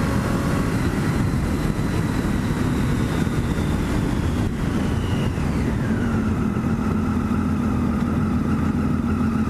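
Triumph Daytona 675's inline three-cylinder engine running under way, with wind rushing over the helmet-mounted microphone. About halfway through, the engine pitch drops as the revs fall, then holds steady at the lower pitch.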